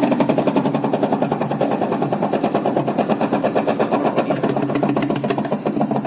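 Front-load washing machine in its spin cycle, clattering loudly with a fast, even rhythm: the excessive spin vibration noise that is the fault being checked.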